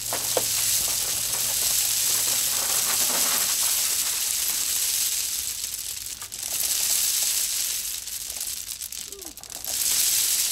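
Gravel pouring off a pickup's tailgate as a hand-cranked cargo unloader drags the load back: a steady rushing hiss of stones sliding and spilling, easing briefly about six seconds in and again near nine seconds.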